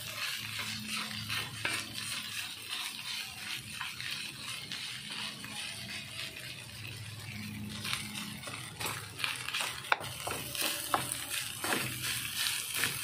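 Wooden spatula stirring and scraping rice in an aluminium wok, over a light sizzle of frying. Short knocks of the spatula against the pan come more often in the second half, the sharpest about ten seconds in.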